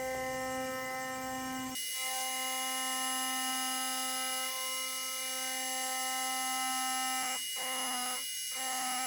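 Hobby CNC router spindle running at a steady whine while milling aluminium. The sound breaks off and drops out briefly a few times near the end.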